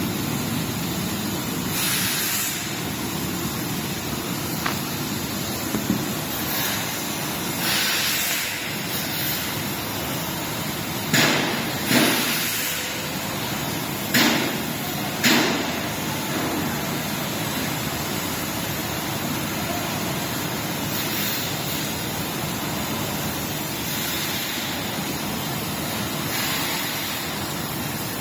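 YC-10S industrial dehumidifiers running, a steady rush of fan and airflow noise, with a few short sharp noises around the middle.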